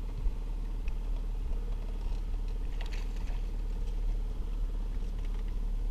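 Boat's outboard motor running at a steady pitch, with faint knocks over it.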